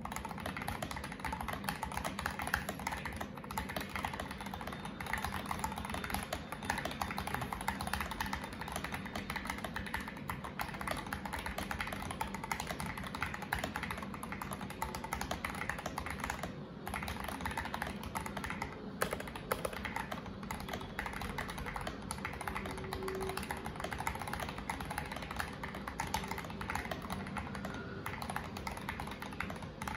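Steady, continuous typing on a mechanical keyboard fitted with Akko OSA-profile keycaps, a rapid run of key clicks and clacks.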